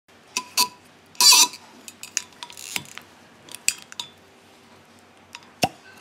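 A wine bottle being opened with a waiter's corkscrew. Metal clicks and clinks against the glass, with a louder rasp a little over a second in, then the cork comes out of the bottle neck with a short pop near the end.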